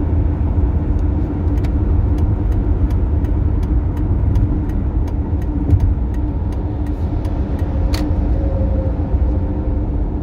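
Toyota Tercel driving at highway speed, heard from inside: a steady low road-and-engine rumble with a steady hum, and a light ticking about two and a half times a second through most of it. The car is being recorded for an abnormal noise it makes at highway speed.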